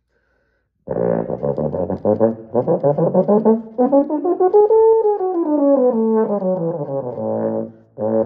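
Euphonium playing, starting about a second in: a quick run of tongued notes, then a smooth slurred run up and back down, then more tongued notes, with a brief break just before the end.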